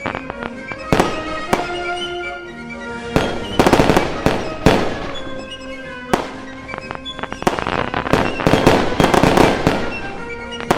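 Fireworks going off in repeated sharp bangs and dense spells of crackling, over background music.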